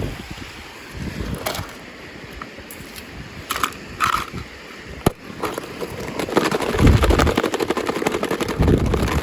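Toy packaging being handled and opened: plastic and cardboard rustling with a few sharp clicks, turning to dense crinkling and crackling with soft thumps in the second half.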